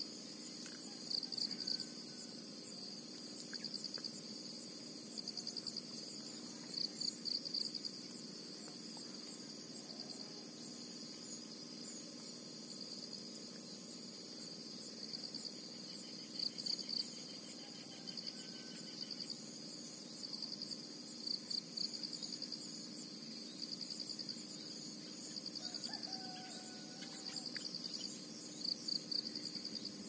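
Insects trilling steadily at two high pitches, with louder pulsing bursts of chirps every few seconds, and a few faint bird chirps.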